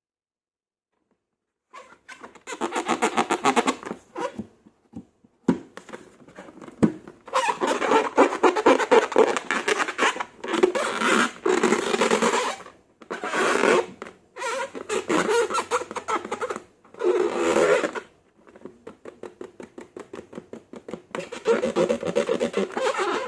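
Slime being squeezed and stretched by hand: sticky, crackling squelches in bursts of a second or two with short pauses, starting about two seconds in.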